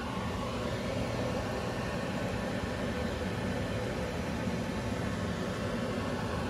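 Pork stew (kilaying) simmering in a pan: a steady, even bubbling hiss.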